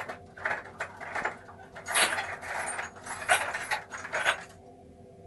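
Small metal parts and tools being handled while a lock cylinder is taken apart: quick, irregular metallic clicks, scrapes and rattles that stop about four and a half seconds in.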